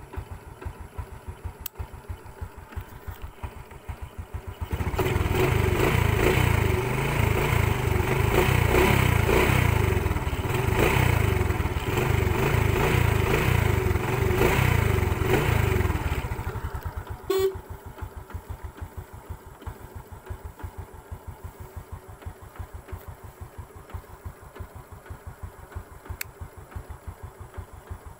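Honda XRM 125's single-cylinder four-stroke engine idling with steady, even firing pulses. About five seconds in it is revved and held at higher speed for some eleven seconds, then drops back to idle. A single sharp click comes soon after.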